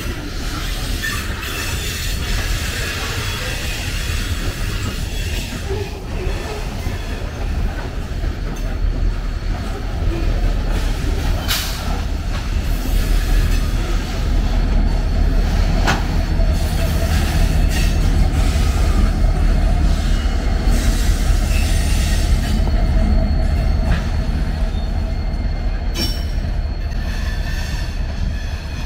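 Covered hopper cars of a BNSF grain train rolling past, with steady wheel squeal, a low rumble and an occasional sharp clunk from the wheels. About halfway through, the Ferromex diesel locomotive running as rear distributed power goes by, and its engine hum makes the sound louder before it eases as the locomotive moves away.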